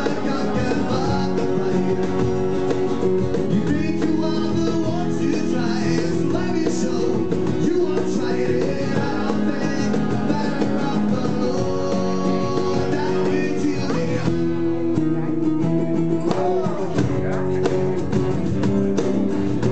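Live acoustic band playing a song: two strummed acoustic guitars and a cajón under a man's lead vocal. The strumming and percussion thin out briefly about three-quarters of the way through, then come back in.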